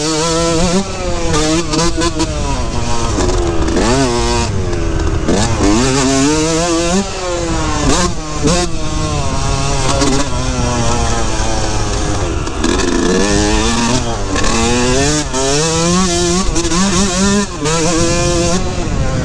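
2003 Yamaha YZ125's two-stroke single-cylinder engine under hard riding, its pitch climbing and dropping over and over as the throttle is opened, closed and the gears are shifted.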